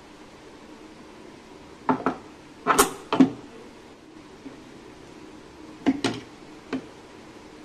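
Short clicks and knocks of hard plastic parts being handled: the wet grinder's coconut scraper head is lifted off its drive shaft and the plastic scraper bowl is moved. A few separate knocks, the loudest a cluster about three seconds in and two more near the end.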